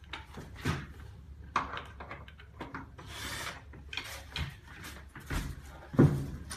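Wooden bed frame and legs being handled during assembly: scattered knocks and wood rubbing on wood, a brief rustle about halfway, and a loud knock near the end.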